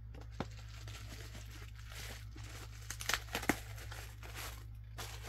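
Plastic shipping bag crinkling and rustling as it is handled and pulled at, with sharp crackles, the loudest two about three seconds in.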